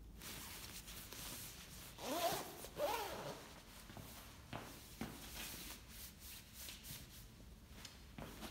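Centre-front two-way zipper of a nylon down coat being zipped up in two quick rising strokes about a second apart, followed by a few softer ticks and rustles.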